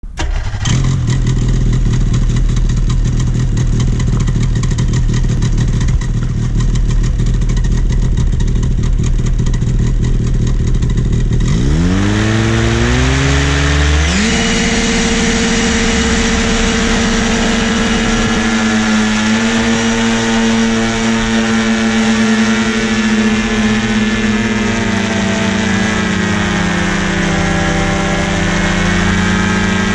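Paratrike's propeller engine running slowly at first. About twelve seconds in it revs up with a rising pitch to full takeoff power, then holds a steady high note for the takeoff run and climb, easing briefly near the end before rising again.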